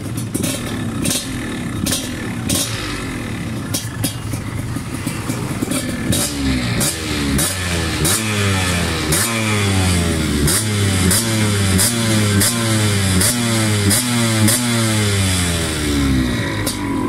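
Yamaha DT two-stroke dirt bike engine running unevenly with sharp pops. From about six seconds in it is blipped again and again through a quick throttle, each rev rising and falling back, until near the end.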